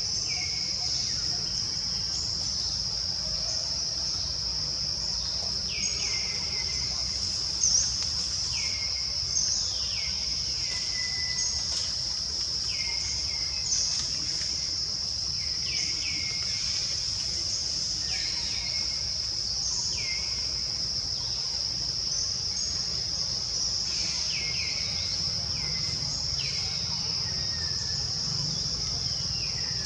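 Steady high-pitched drone of insects in forest, with a bird giving short falling calls over and over, every second or two.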